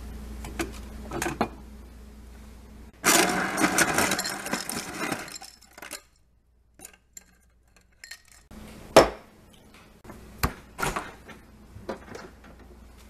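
A drinking glass clinks as it is lifted off a cupboard shelf. Then a refrigerator door dispenser fills the glass with a loud rattling rush lasting about two and a half seconds. After a pause come a few sharp knocks and clicks as the refrigerator door is handled and opened.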